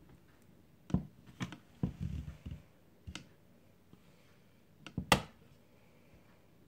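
Clicks and knocks of a wooden wire soap cutter being handled, as the arm is worked and the soap loaf is slid along its plastic channel. They come as a scattered series of separate knocks, the loudest about five seconds in.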